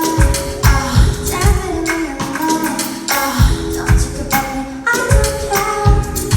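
A band playing a pop song live, with steady drum hits, bass and a sung vocal line.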